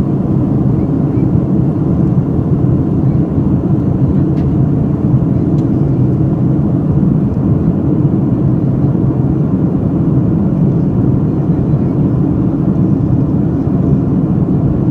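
Steady low drone of an airliner's engines, holding level with no rise or fall.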